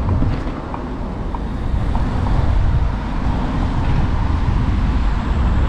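Wind rushing over the microphone of a camera carried on a moving electric unicycle: a steady low rumble with a thinner hiss above it.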